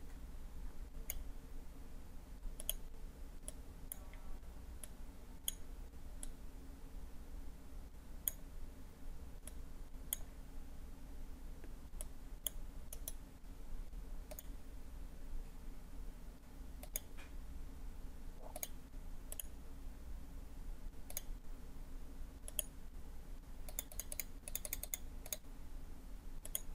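Computer mouse clicking faintly: single clicks spaced through, then a quick run of clicks near the end, over a low steady hum.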